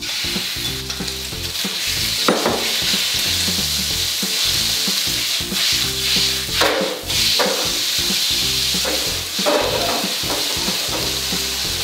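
Shredded pork, marinated in soy sauce and cornstarch, sizzling steadily in hot oil in a wok as it is stirred with chopsticks. A few sharper stirring strokes come through, around two seconds in and again past the middle.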